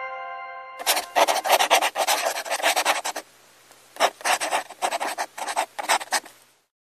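Felt-tip marker scratching on paper in quick, dense strokes, in two runs with a short pause between. The ringing of a chime dies away at the start.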